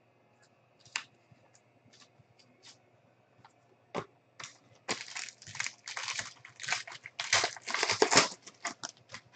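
A few light clicks, then from about halfway the foil wrapper of a trading-card pack crinkling and tearing as it is pulled open by hand.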